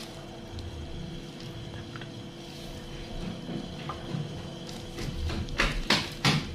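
Plastic measuring spoon scraping and clicking against a glass bowl as it scoops pineapple jam, with a few sharp, loud clicks between about five and a half and six and a half seconds in. A steady low hum runs underneath.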